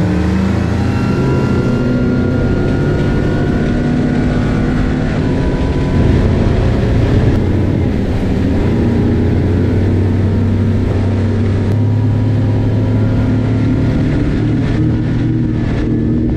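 Mercury Verado V12 600 outboard running at high speed on a tritoon, a steady engine note over the rush of spray and wind. The note shifts slightly about six seconds in.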